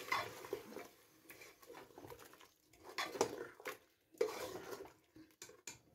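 Metal spoon stirring mutton and masala in a pressure cooker, with irregular faint scrapes and clinks against the pot's metal sides.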